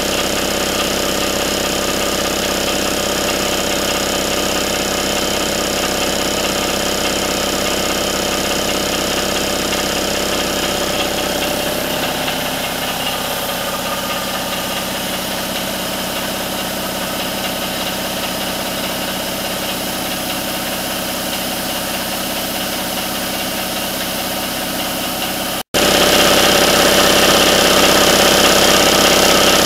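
1993 Craftsman 5 HP, 240 V air compressor running steadily, its electric motor driving the oil-lubricated piston pump under sustained load to keep the tank charged while air is drawn off. It is slightly quieter from about halfway through. Near the end the sound breaks off for an instant and comes back a little louder.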